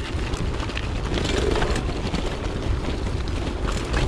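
Wind buffeting an action camera's microphone during a bicycle ride, a steady low rumble mixed with rolling noise and scattered light ticks and rattles.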